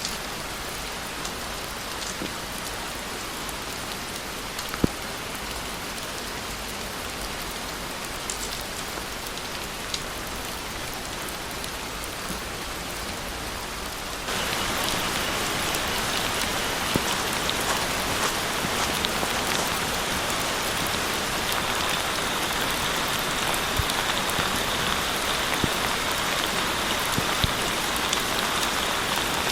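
Steady rain falling, an even hiss with scattered sharp drop ticks. About halfway through it steps up, louder and brighter.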